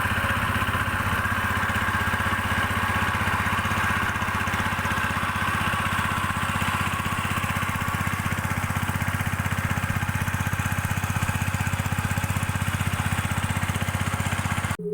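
Small engine running steadily at a constant speed with an even, fast pulse, cutting off suddenly just before the end.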